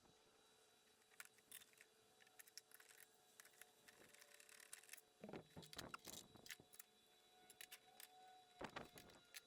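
Near silence with scattered faint clicks and light taps, a few clustered about halfway through and again near the end, over a faint steady hum.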